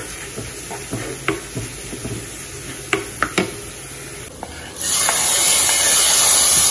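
A spoon stirring and tapping in a pan of onions and curry leaves frying in oil. About five seconds in, a loud, steady sizzle starts as the hot tempering is poured into the fish curry.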